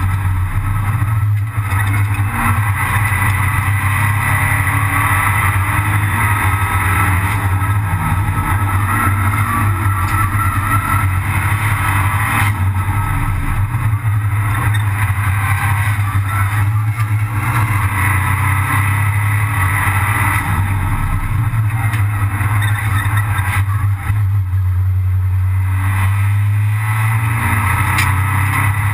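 Abarth 500 Assetto Corse's turbocharged 1.4-litre four-cylinder engine running hard at racing speed, heard from inside the stripped cockpit. The engine note holds steady, dipping briefly twice.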